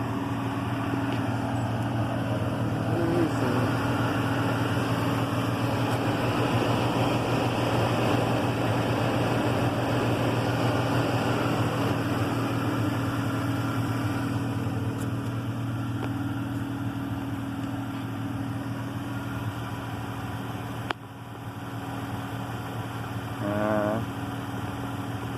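Dodge car's engine idling steadily with a low, even hum. A single sharp click comes about 21 seconds in, after which the sound is a little quieter.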